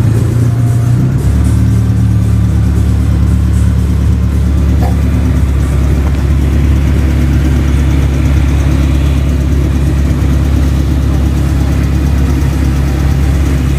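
Mitsubishi Galant's engine idling steadily, its note changing a little about a second in.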